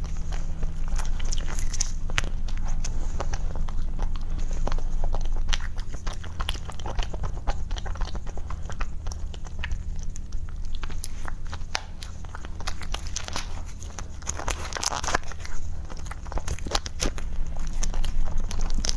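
Close-miked eating: biting and chewing a chocolate-coated cake, with small crunches and mouth clicks and the plastic wrapper crinkling as the chocolate is picked and gnawed off it, over a steady low hum.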